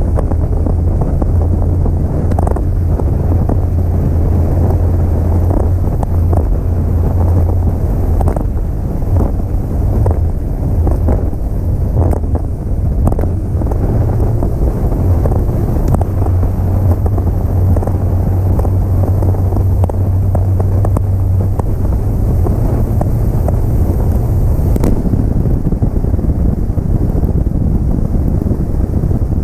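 Bass boat running fast over choppy water: the outboard motor's steady low drone under heavy wind buffeting on the microphone, with frequent knocks of the hull slapping the waves.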